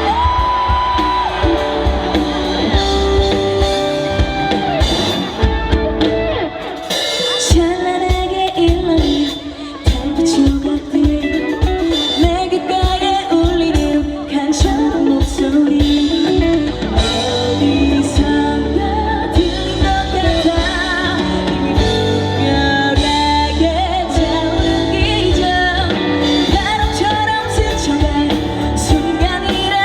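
Live performance of a pop ballad: a female singer's voice, with held, wavering notes, over a band with drums and guitar.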